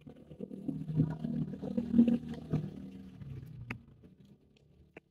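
Screwdriver and hand-handling noise inside an opened laptop as the screws of the hard-disk bracket are undone: an irregular low rumbling and scraping for about three seconds, then two sharp clicks near the end.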